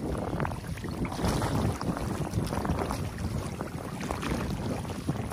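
Water rushing through a gap dug in a beaver dam, with repeated splashing and sloshing as a shovel is worked in the shallow water.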